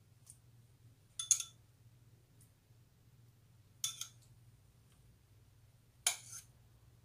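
Three short clinks, a couple of seconds apart, of a metal kitchen utensil against dishes as tomato slices are laid into a glass baking dish, each ringing briefly.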